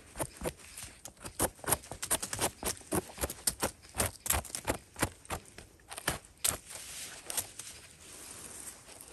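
Dry leaf litter and twigs on a forest floor crackling and rustling in quick, irregular snaps as someone moves through them, thinning out near the end.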